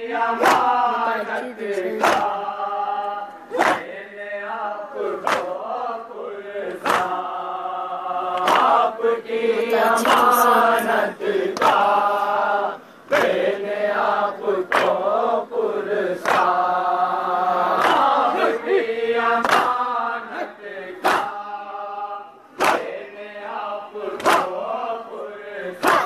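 A group of men chants a Shia farewell noha (lament) in unison. It is punctuated by sharp, in-time strikes about every second and a half, the chest-beating (matam) that keeps the noha's beat.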